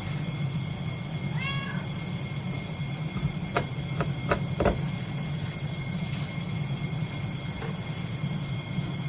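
A domestic cat meows once, a short rising-then-falling call about a second and a half in, followed by a few sharp clicks a couple of seconds later, over a steady low hum.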